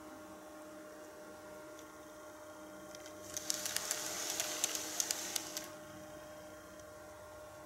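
KATO N-gauge Tobu 50070-series model train rolling along the track, its wheels rattling and clicking over the rail joints for about two seconds in the middle, over a faint steady hum. The rattle stops as the train comes to a halt.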